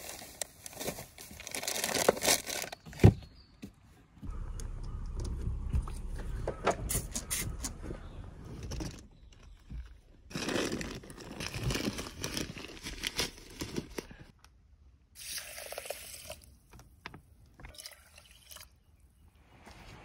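Rummaging inside a small car: bedding and plastic bags rustle while things are shifted, with scattered knocks and clicks as a seat cushion is tipped up to reach the storage tray beneath it. A single sharp click about three seconds in is the loudest sound.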